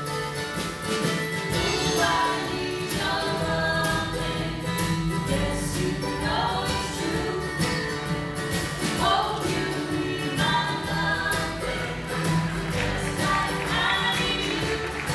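Live acoustic band playing a song, with several voices singing together in harmony over guitar and bass.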